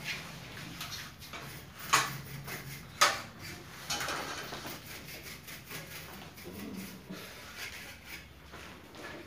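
Rustling and rubbing of a cloth wash bag being fitted around a ceiling cassette air-conditioner unit for a wet service, with two sharp knocks about two and three seconds in.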